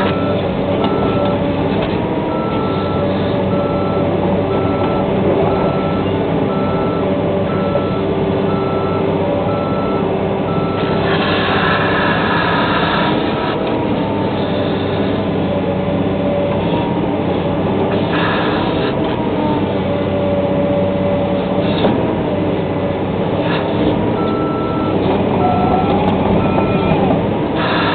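Excavator's diesel engine running steadily, with a back-up alarm beeping in an even pulse for the first ten seconds or so and again near the end. A few short rushes of noise come in between.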